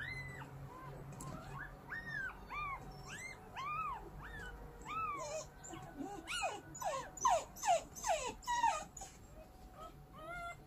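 Newborn puppy crying, with a newborn lying apart from its litter: a string of high, squeaky whimpers that each rise and then fall, about two a second. About six seconds in they turn into faster, louder squeals, then die down near the end.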